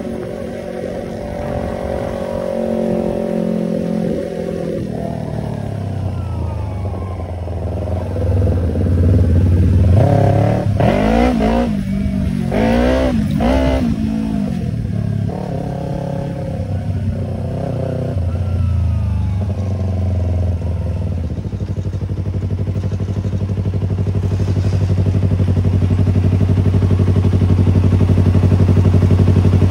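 Yamaha YZF-R25's parallel-twin engine through an aftermarket Tiger exhaust, revved in three quick blips a little before halfway, then running at a steady low note that grows louder toward the end.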